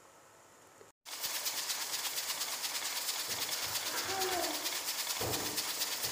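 Chopped onions sizzling in hot oil in a frying pan: a steady crackling hiss that starts suddenly about a second in, with a few dull thumps partway through.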